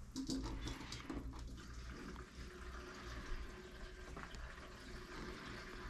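Petrol running through a siphon hose into a plastic jerry can: a steady liquid hiss and trickle. A few clicks and knocks come in the first second and a half.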